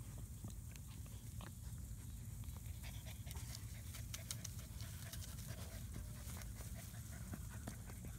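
Six-week-old German Shepherd puppies panting and scuffling in the grass as they play, with a patter of small clicks and rustles through the second half.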